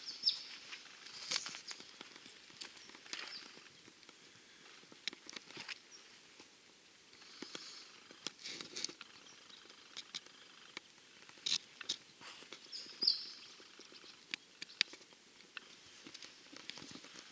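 Faint, scattered crunching and clicking of footsteps moving over dry dirt and twigs, with a few short high chirps.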